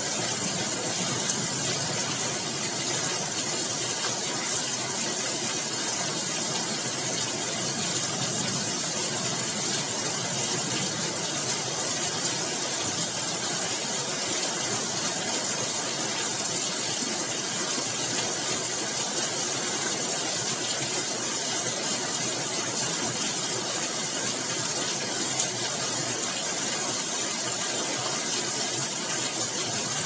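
Heavy rain pouring steadily in a storm, one even hiss with no let-up.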